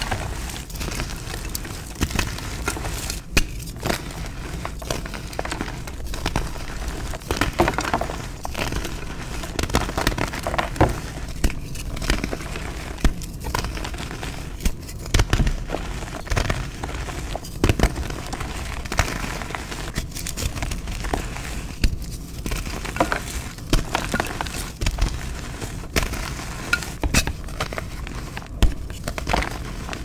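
Hands crushing and squeezing dyed gym chalk, a continuous dry crumbling crunch with many small sharp crackles.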